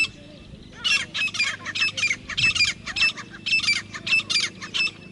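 Grey francolin calling: a loud, fast run of harsh repeated notes in groups of two or three, starting about a second in and stopping just before the end.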